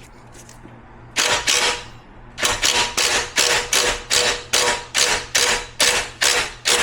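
Ratchet wrench worked back and forth in quick, even strokes, about two and a half a second, tightening the bolt that holds a power wheelchair's tilt actuator.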